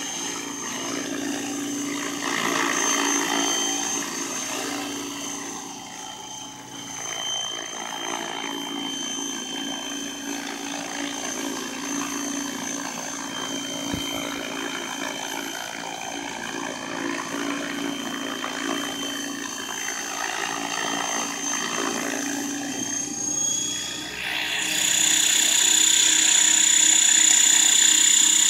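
Electric radio-controlled model helicopter hovering: a steady high motor whine over the whir of the rotor. About 24 seconds in the whine steps up in pitch and gets louder as the helicopter settles onto the pad.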